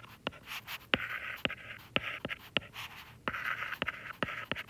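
Stylus writing on a tablet's glass screen: sharp taps as the tip touches down, about two a second, with short scratchy strokes between them.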